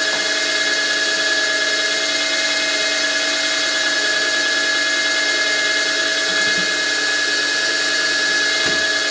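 Optimum MB4 mill-drill running with a spot drill in its small drill chuck: a steady whine from the motor and spindle drive, with several fixed tones, that starts suddenly. Near the end the spot drill is fed down onto the casting to spot a mounting hole.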